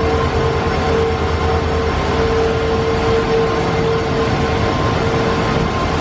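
WDG4 and WDM3D diesel locomotives of a multi-locomotive freight train passing close by with their engines working. Over the heavy engine rumble there is a steady, high turbocharger whine, the "jet sound" of the EMD locomotives.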